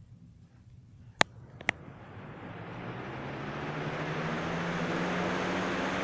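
Box fan switched on: two sharp clicks of the switch about a second in, then the motor spinning up, a hum rising slightly in pitch under a growing rush of air that levels off near the end.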